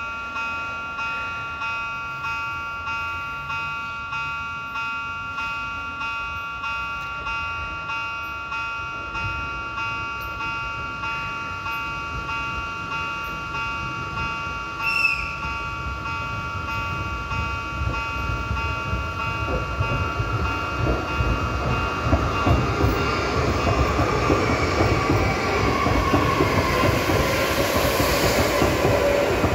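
A pulsing warning tone, several steady high notes beating about one and a half times a second, with a short high toot about halfway through. Then a passenger train pulls out and passes close, its rumble and wheel noise swelling over the last ten seconds.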